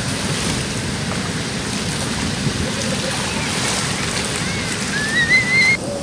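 Water of a shallow river rushing and being splashed by hand, with a high-pitched, wavering squeal of a child's voice rising near the end and cutting off suddenly.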